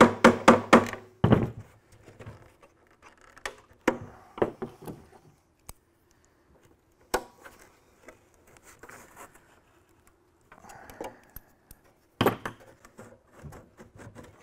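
A hammer taps a screwdriver wedged under a rusty steel clamp on a heater box: a quick run of ringing metal strikes, then a single harder strike. After that come light clinks and scrapes of locking pliers working the clamp edge, with another sharp knock near the end.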